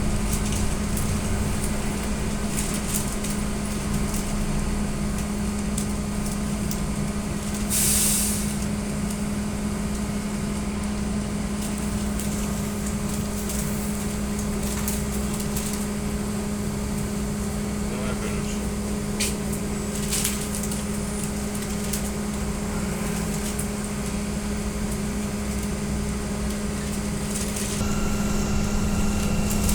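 Interior of an AKSM-321 trolleybus under way: a steady electrical hum with running noise, a short pneumatic hiss about eight seconds in, and a higher whine joining near the end.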